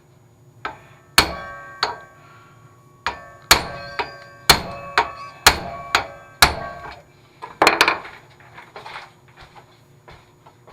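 Hammer blows on the seized, rusted reel of an old Johnston reel mower, pounding to break it free: about a dozen sharp metal-on-metal strikes at an uneven pace, each ringing briefly, with a quick double blow near the end and lighter taps after it.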